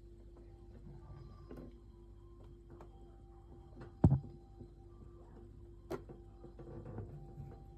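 A steady hum with scattered light clicks and one sharp knock about four seconds in, then a smaller click about two seconds later.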